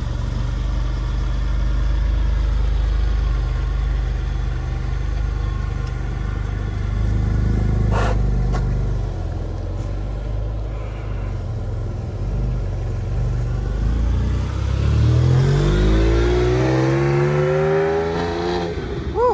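Porsche 996's 4.0-litre flat-six engine running steadily, with a single sharp knock about eight seconds in. Over the last few seconds it revs up hard as the car accelerates, its pitch climbing twice.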